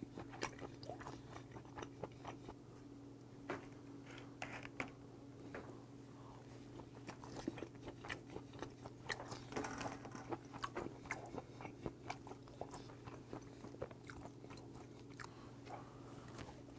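Close-up mouth sounds of someone chewing raw yellowtail sashimi: soft wet smacks and small irregular clicks, over a faint steady hum.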